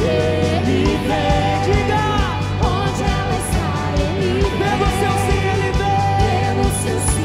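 Live Catholic worship band playing a song: a melody over a steady bass line and a regular drum beat.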